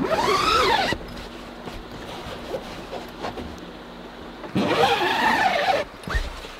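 The pop-top roof of a Volkswagen Westfalia camper van squealing twice as it is raised, each squeal about a second long and rising then falling in pitch, then a low thud near the end.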